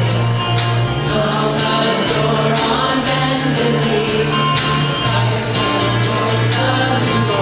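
Live band playing a Christmas song with singing: electric and acoustic guitars, keyboard and drum kit keeping a steady beat under a sustained bass line.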